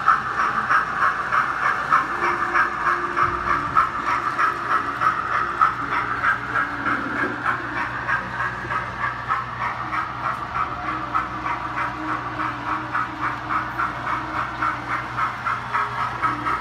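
Steam-locomotive exhaust chuffs from the Hornby A4 model's TTS DCC sound decoder, played through its small onboard speaker as a rapid, even beat while the locomotive runs.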